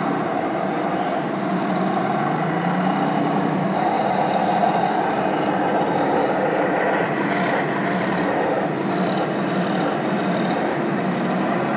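1:6 scale radio-controlled T-34 model tank driving over dirt: a steady running of its drive and tracks. From about seven seconds in there is also scraping and rustling as it works through the pine branches.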